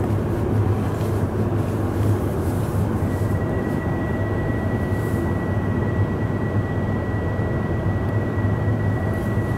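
Steady low rumble inside a Tohoku Shinkansen passenger car. A thin, steady high tone joins about three seconds in and holds.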